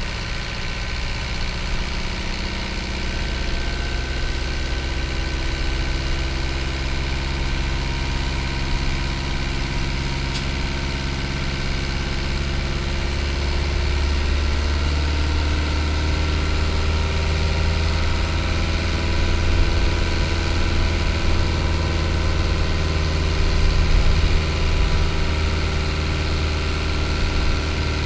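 Hino Liesse bus's J05D 4.7-litre diesel engine running as the bus drives, a steady low engine note whose pitch rises about halfway through.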